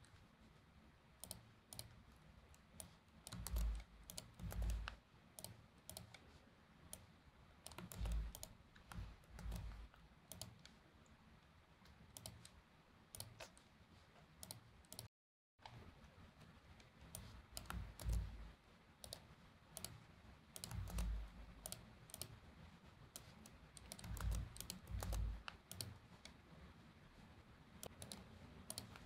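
Faint typing on a computer keyboard and mouse clicks in irregular short runs, with occasional dull knocks; the sound drops out completely for a moment about halfway through.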